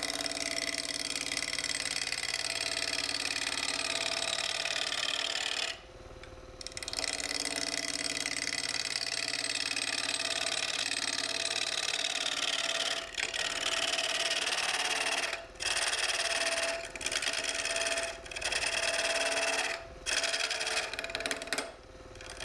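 A parting tool cuts into a spinning ash blank on a wood lathe, removing material to form a tenon. A steady rasping hiss of the cut rides over the lathe's motor hum. The cutting noise stops for a moment about six seconds in, and briefly several more times in the second half as the tool is eased off and back in.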